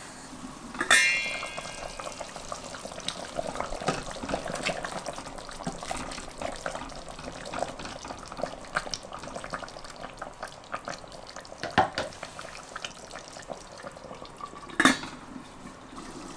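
Chicken broth simmering in a stainless steel pot, a steady scatter of small bubbling pops and ticks. About a second in a sharp metallic clink rings briefly, and near the end there is another sharp knock.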